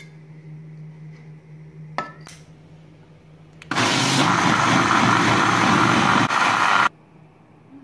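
Electric blender running at full speed for about three seconds, blending yogurt, milk and water into lassi, starting suddenly and cutting off abruptly. A single sharp knock comes about two seconds in, before the motor starts.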